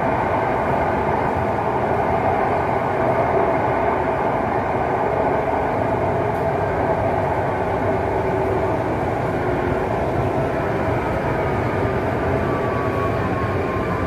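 Running noise of a BEML-built Mumbai Metro train heard from inside the coach: a steady rumble with a faint motor whine. Near the end the whine falls in pitch as the train slows.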